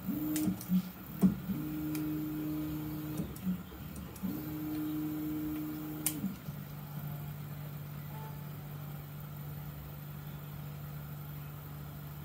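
Stepper motors of a Mostly Printed CNC (MPCNC) moving the machine: three separate moves of a steady whine that starts and stops, with a few sharp clicks, then a lower, steady whine from about six seconds in as the Z axis slowly lowers the bit onto a wired touch plate to probe its height.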